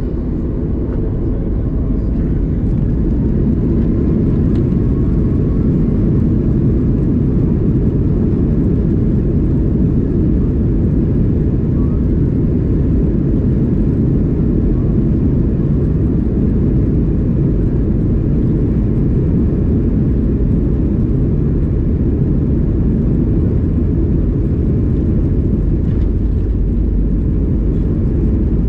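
Boeing 737 MAX 8 jet engines and airflow heard from inside the passenger cabin: a steady, loud low rumble that swells slightly over the first few seconds, then holds even.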